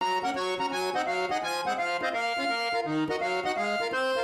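Background music: a lively tune led by an accordion-like reed sound, with a melody over a bouncing bass line of short notes.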